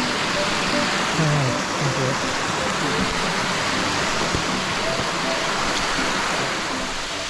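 Steady rushing of water from a waterfall, with faint voices now and then underneath.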